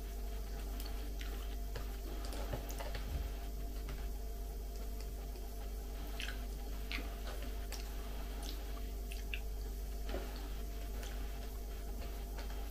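Quiet eating sounds: moist chewing and scattered light clicks of chopsticks against a small plastic sauce cup, over a steady low hum.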